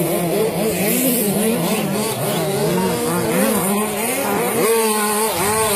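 Engines of radio-controlled racing trucks revving as they race, several at once, their pitches rising and falling quickly and overlapping.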